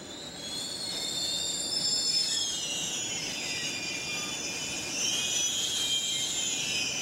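Wheels of an EH200 electric locomotive squealing against the rails as it moves along the station tracks. Several high-pitched tones swell about half a second in, waver and shift in pitch, then cut off suddenly near the end, over a low running rumble.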